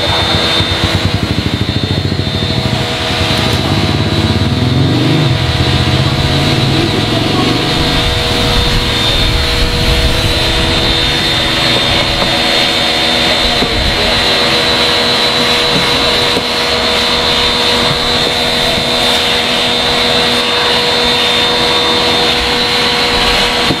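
Loud, steady machine whir with several steady hum tones and an uneven low rumble in the first few seconds.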